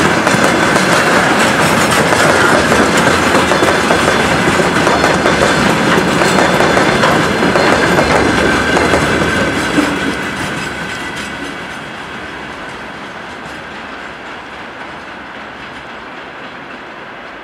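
Freight train wagons rolling past close by, their wheels clattering steadily over the rails; about ten seconds in the last wagon goes by and the sound fades as the train moves away.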